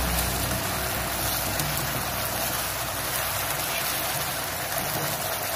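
Chicken, onion and capsicum in sauce sizzling and bubbling steadily in a frying pan as it fries.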